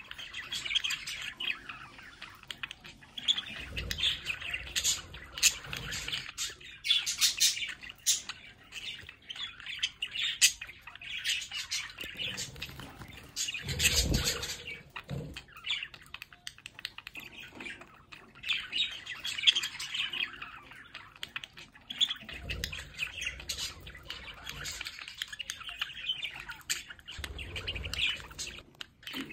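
Several budgerigars chattering: continuous warbling and chirping with occasional sharper squawks. A few dull thumps come through, the loudest about halfway through.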